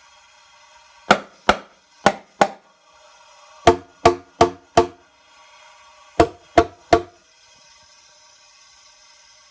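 Hammer tapping on the valve gear of a Jeep 2.8 CRD diesel, eleven sharp metal strikes in three quick runs of four, four and three, to knock carbon off a valve seat during a leak-down test on cylinder #3. A faint steady hiss runs underneath.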